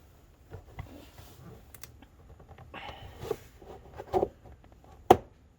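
Plastic door trim panel being pried at with a nylon trim tool: scattered small clicks, creaks and knocks, with one sharp loud snap about five seconds in.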